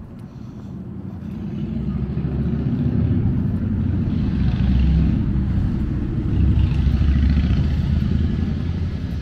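Loud deep engine rumble from a heavy vehicle, swelling over the first few seconds and peaking twice, about five and seven seconds in, before easing off near the end.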